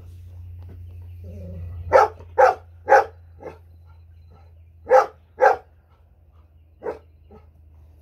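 Golden retriever barking: three loud barks in quick succession about two seconds in, two more around the middle, and a single fainter bark near the end, over a steady low hum.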